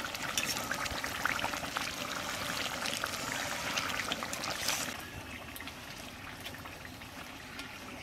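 Thick, oily chicken chaap gravy bubbling and popping in a wok as it simmers down to thicken, stirred with a spatula. The bubbling gets quieter about five seconds in.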